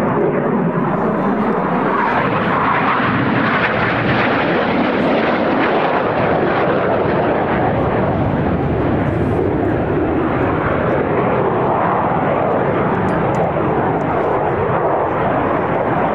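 Jet noise from BAE Hawk T1 jets, each powered by a single Adour turbofan, flying a display: a loud, continuous rushing roar that swells a little in the first few seconds.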